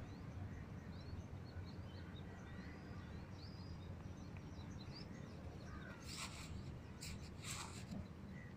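Short, high bird chirps scattered throughout over a steady low background hum, with three short harsh bursts about six to eight seconds in.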